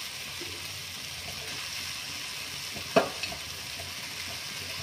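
Oil sizzling steadily in a steel pan under freshly added mashed potato and tomato masala. A single sharp knock comes about three seconds in.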